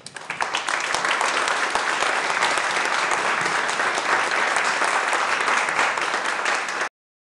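Audience applauding, a dense patter of many hands clapping that cuts off suddenly near the end.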